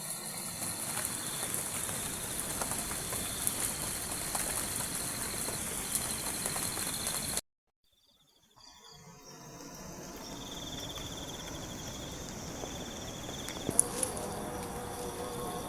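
Rainforest insects trilling, a high pulsing buzz over a steady hiss. The sound cuts out for about a second halfway through, then the insects start again, with a sharp click near the end.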